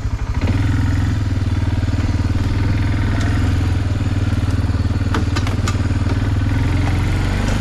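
A vehicle engine running steadily, picking up from a pulsing idle about half a second in, with a few light clicks or rattles near the end.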